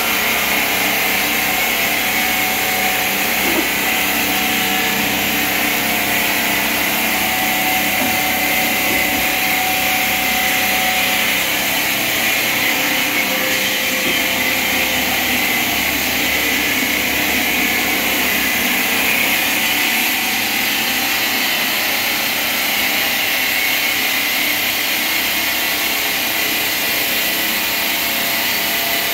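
Marble-factory machinery running steadily: a loud, even mechanical whine and hiss with no breaks.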